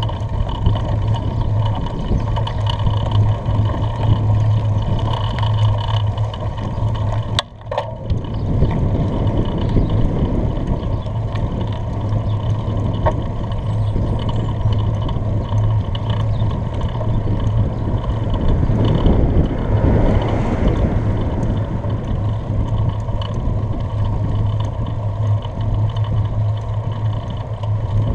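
Wind buffeting the microphone of a camera on a moving bicycle: a loud, steady rumble with a constant low hum, and road noise from the riding. A click and a brief drop in the sound come about seven and a half seconds in.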